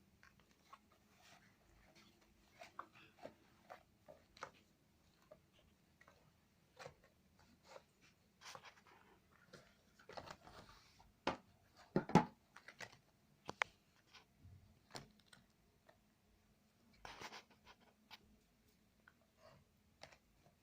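Cardboard game cards being taken out of their box and sorted by hand: faint, scattered rustles, scrapes and light clicks, with a louder handful about twelve seconds in.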